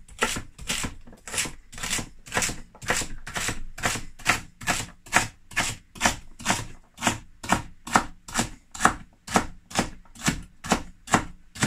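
Large kitchen knife dicing celery on a plastic chopping board: a steady run of crisp chops, about three a second.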